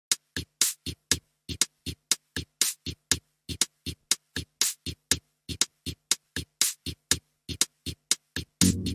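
Electronic music: a sparse drum-machine beat of short, clipped hits, about four a second with silence between them. Near the end a bass and synth layer comes in.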